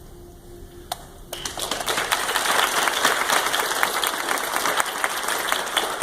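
Audience applauding: a dense patter of many quick claps that breaks out suddenly about a second in, after a single sharp click, and keeps going.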